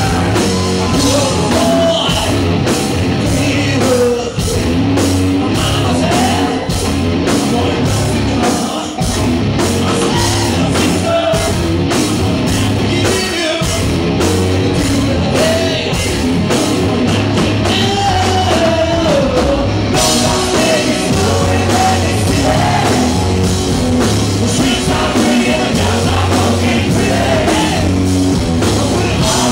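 Rock band playing live, with electric guitar, bass and drum kit under a lead singer's vocals. About two-thirds of the way through, the band grows brighter and fuller.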